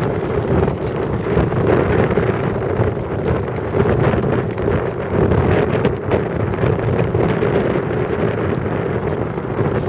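Steady wind rumble on the microphone mixed with the hiss of long-distance skate blades gliding over clear ice.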